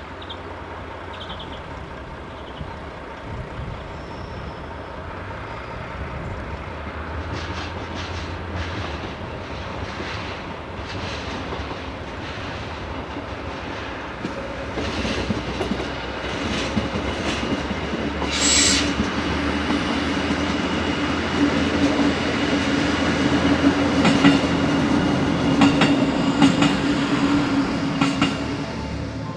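DB class 628 diesel multiple unit approaching and growing steadily louder. Its diesel drone and the clatter of wheels over the track come with a loud rattling, and a brief high-pitched squeal sounds a little past halfway.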